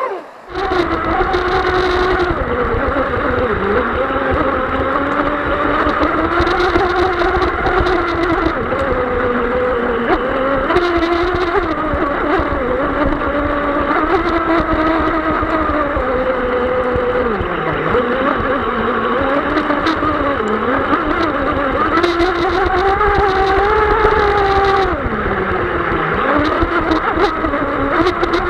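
Brushless electric motor of a 5S LiPo RC F1 tunnel-hull racing boat, heard from a camera on the boat: a steady whine that dips in pitch several times as the throttle is eased, over water spray and wind buffeting the microphone. It is held below full throttle in wind and waves.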